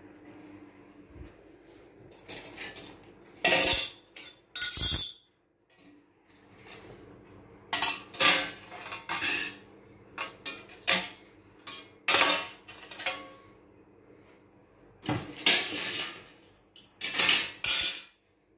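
Sheet-metal panel with a fan grille being handled: irregular metallic clatters and scrapes, loudest about four seconds in and again near the end, over a faint low steady hum.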